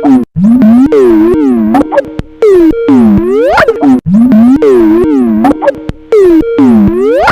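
Skype ringtone, edited and warped, playing very loud: synth tones swoop down and back up in pitch, over and over, about once a second.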